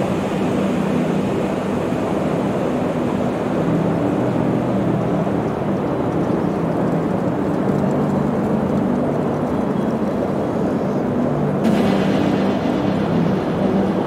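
Steady driving noise heard inside a Jeep's cabin: a low engine drone under a rush of tyre and wind noise. A brighter hiss joins near the end.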